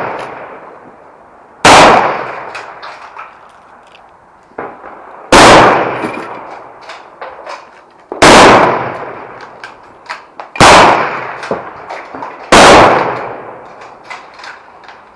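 Five loud rifle shots spaced about two and a half to three and a half seconds apart, each followed by a long echoing tail, with small clicks and knocks between them.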